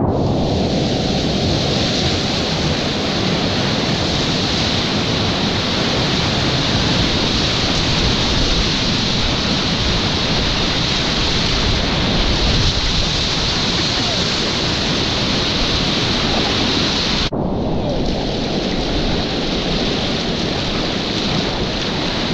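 Whitewater rapids rushing steadily around a kayak in the current, a dense, loud hiss of churning water close to the boat. About seventeen seconds in, the sound turns dull for a moment, then brightens again.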